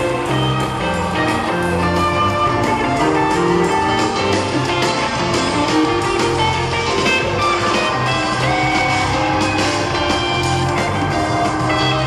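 Live rock band playing in a large hall: electric guitar over bass and a drum kit, recorded from within the crowd.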